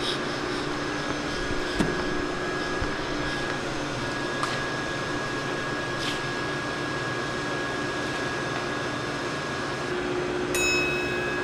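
Steady ventilation hum of an underground parking garage, with a few faint clicks. About ten and a half seconds in, a short high ringing tone sounds: an elevator arrival chime.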